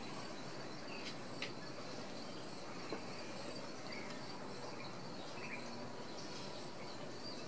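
Steady outdoor background noise with a few faint, short, high chirps scattered through it and two light clicks, about one and a half and three seconds in.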